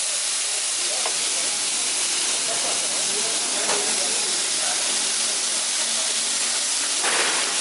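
Fish sizzling on a hot grill: a steady, dense hiss, with a brief louder surge of hiss near the end.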